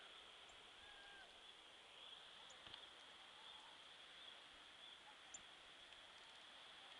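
Near silence: faint woodland ambience with a steady high-pitched hiss, a couple of short faint whistles in the first second or so, and a few tiny high chirps and ticks.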